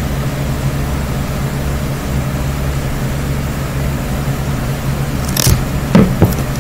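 Steady low mechanical hum in the room, with a short sharp knock about five seconds in and a louder dull thud about a second later as a ceramic mug is lowered and set down.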